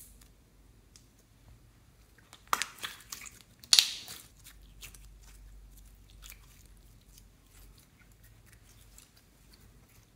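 Clear pink glitter slime being stretched, folded and pressed by hand: sticky crackling and popping clicks. The loudest pops come in a quick cluster a few seconds in and one more soon after, then only faint scattered clicks.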